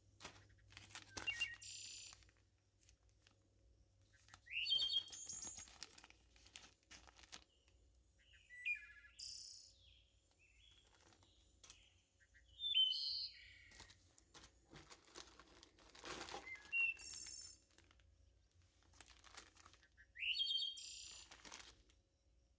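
A bird chirping repeatedly, short rising calls about every four seconds, over the crinkle and rustle of plastic zip-top bags being handled.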